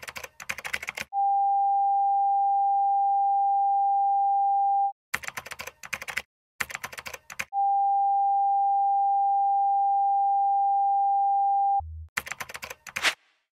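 Typewriter-style keystroke sound effect in short rapid runs, alternating with a steady beep tone held for about four seconds at a time, twice.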